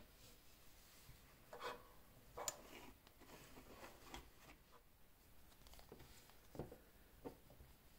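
Faint handling sounds of a Casio Duro dive watch being turned over in the hands: a few soft rustles of the resin strap and light clicks from the steel case and bezel.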